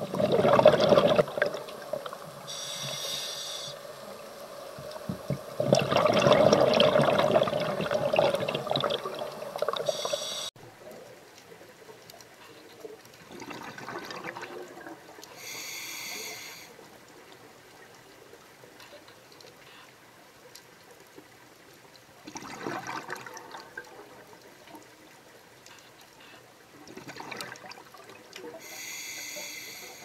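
Scuba diver breathing through a regulator underwater: rushes of exhaled bubbles alternating with short hissing inhalations, heard through the camera housing. The bubbling is loud for the first ten seconds and fainter after that.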